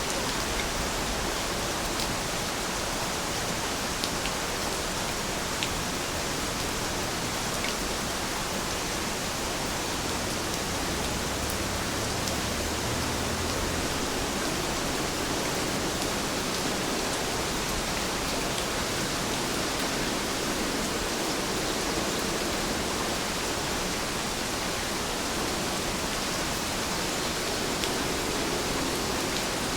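Steady rain falling, a dense even hiss with occasional faint drop ticks.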